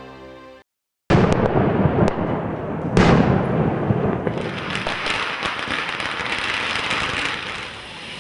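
Fireworks going off: a sudden start about a second in with a few sharp firecracker bangs, the loudest about three seconds in, then a steady dense hissing crackle of sparks.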